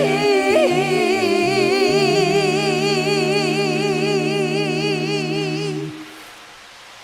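A cappella ensemble of voices humming a held closing chord with vibrato over a low bass part. The chord cuts off about six seconds in, leaving a faint hiss.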